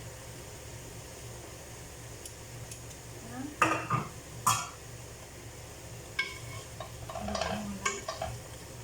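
A utensil stirring chicken in a pan of sauce over low heat. There are two sharp clanks against the pan about three and a half and four and a half seconds in, then a run of scraping strokes near the end.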